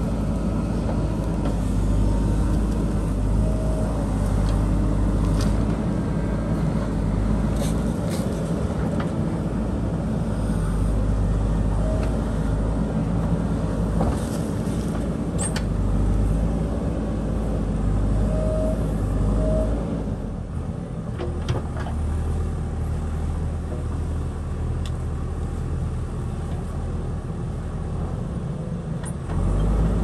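JCB 3DX backhoe loader's diesel engine running steadily under load while the backhoe bucket digs and scrapes earth and stones, with scattered sharp knocks. The engine note eases a little about two-thirds through.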